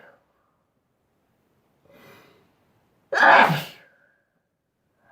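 A person sneezing. The end of one sneeze fades at the start, then a short, faint intake of breath about two seconds in and a loud sneeze about three seconds in.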